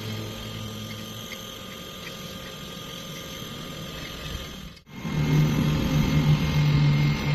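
Welding arc on thin metal: a steady hissing arc, then after a sudden break about two-thirds of the way in, a louder buzzing arc in short runs, like stitch welding.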